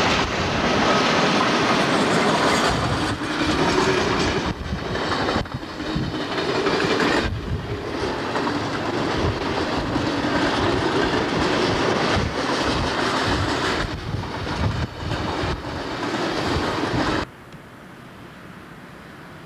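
Container freight train hauled by NSWR 86 class electric locomotives passing close: wheels clattering over the rail joints and the steady running noise of the wagons. Near the end the sound cuts abruptly to a quieter, steady, more distant train noise.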